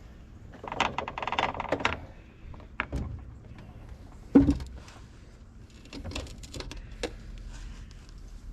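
Metal parts knocking, scraping and clicking as the tractor's battery hold-down clamps are fitted and tightened. A rattling scrape comes about a second in, then separate clunks, the loudest a sharp knock just past four seconds.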